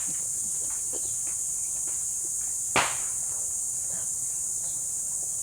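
Steady high-pitched chirring of insects, with faint scattered clicks and one sharp click about halfway through.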